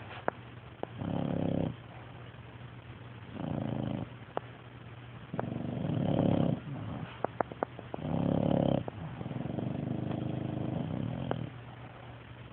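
A sleeping pet snoring: rough breaths about every two seconds, with a longer, softer one near the end and a few faint clicks in between.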